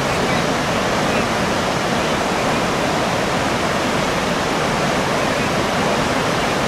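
Krka River waterfall rushing: a loud, steady, unbroken roar of falling water.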